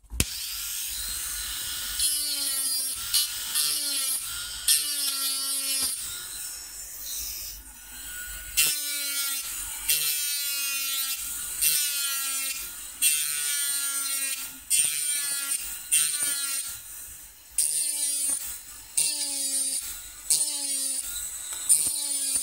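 Small high-speed rotary engraving tool cutting a titanium knife handle with a rounded burr, in a dozen or so short passes. Each pass is a motor whine that dips in pitch and comes back up, over a gritty cutting hiss.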